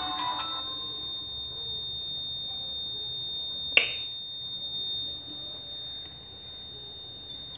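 Electronic buzzer of a breadboard laser tripwire alarm sounding a steady high-pitched tone: the alarm is triggered because no laser light falls on its LDR. It cuts off suddenly at the very end as the laser beam lands on the LDR. A single sharp click about four seconds in.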